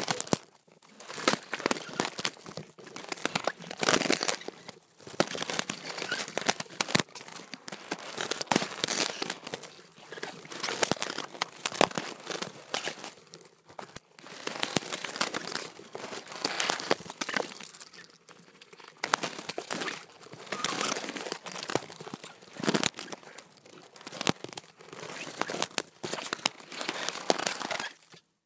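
Crackling crunching and scraping, in repeated bursts roughly every second or two, each full of sharp little cracks.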